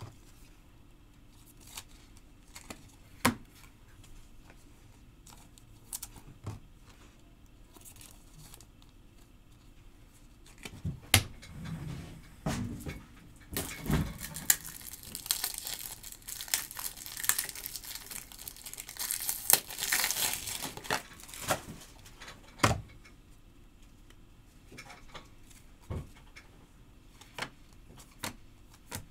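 A trading card pack's wrapper torn open and crinkled for several seconds midway, among scattered clicks, taps and a few thumps from cards and packaging being handled.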